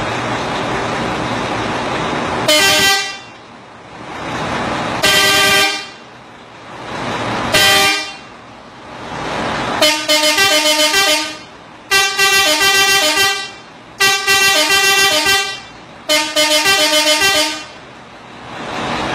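A multi-trumpet truck air horn set driven by a rhythm horn module, sounding a chord of several notes: three short blasts, then four longer blasts broken into rapid stuttering pulses. A steady rushing noise fills the gaps between blasts.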